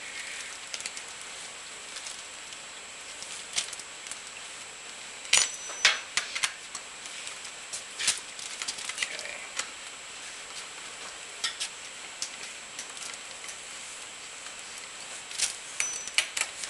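Scattered light metal clicks and taps from a T-handle wrench spinning loosened bolts out of a plastic engine cover, a few at a time with gaps between, over a faint steady high whine.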